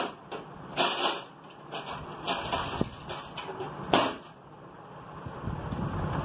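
Background road traffic: a low rumble of vehicles with several short bursts of hissing noise, the loudest about four seconds in.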